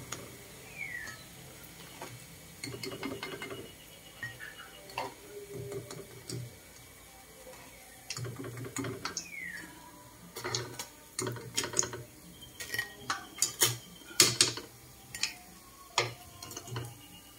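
Metal kitchen tongs clicking and scraping against a wok as deep-fried pilipit are turned and lifted out of hot oil, the clicks coming thick and fast in the second half. Faint sizzling of the frying oil underneath.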